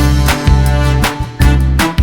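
Background music with a steady beat about twice a second over a bass line, starting sharply at the beginning.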